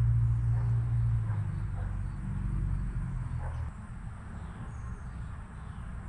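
Garden ambience: a steady high-pitched insect chorus with faint short bird chirps, over a low hum that drops away about two-thirds of the way through.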